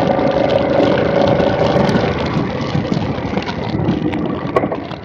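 2017 Triumph Bonneville T100's 900 cc parallel-twin engine running on the move, with wind and road noise. The engine note grows quieter and less distinct in the second half.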